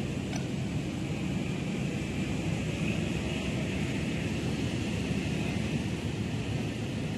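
Executive-class passenger train coaches rolling past a station platform: a steady low rumble of wheels and running gear with a constant hiss over it.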